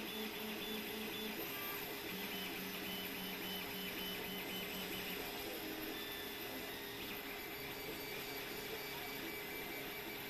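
Gmax 1.5XT+ dual-extruder 3D printer printing: its stepper motors sing in short tones that jump in pitch with each move of the print head, over a steady hum.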